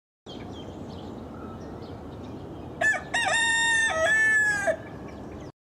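A rooster crowing once: a brief opening note, then a long held crow of nearly two seconds, over a steady background hiss.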